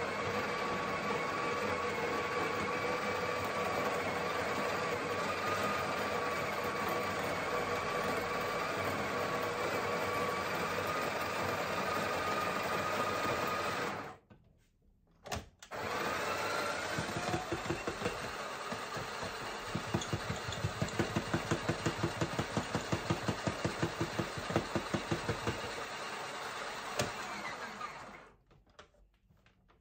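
Built-in conical burr grinder of a Breville/Sage Barista Express espresso machine running, grinding coffee beans into the portafilter with a steady motor whine. About 14 seconds in it stops briefly, then starts again with a rising whine and runs with a fast pulsing rattle before cutting off near the end.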